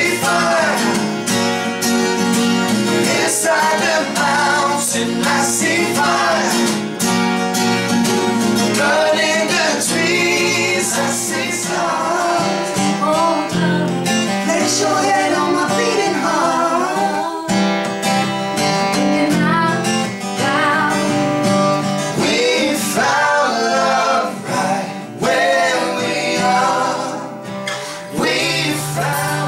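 Acoustic folk-pop song: two acoustic guitars strummed while a woman sings the lead and two men sing along with her.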